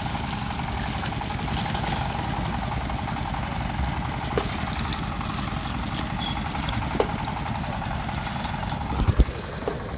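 An engine running steadily at an even speed, with a couple of short light knocks about four and seven seconds in.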